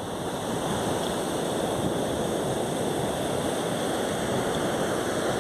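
Ocean surf on a beach washing steadily as an even hiss, with no distinct wave breaks.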